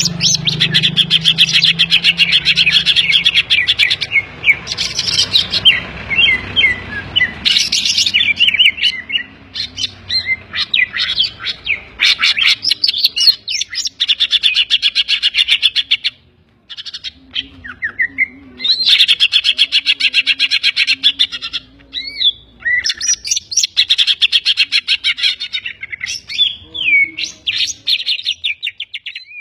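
Green leafbird (cucak ijo) singing loudly in long, rapid, chattering phrases of trills and sweeping whistled notes, broken by a couple of short pauses. Its song is filled with mimicked phrases of kapas tembak and tengkek (kingfisher) calls.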